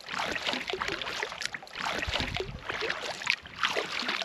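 Canoe paddle working through lake water: irregular swishing and gurgling of the blade with splashes and drips.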